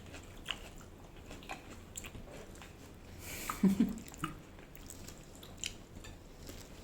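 Close-up chewing and mouth sounds of a person eating: small wet smacks and clicks scattered through, with a short vocal sound about halfway.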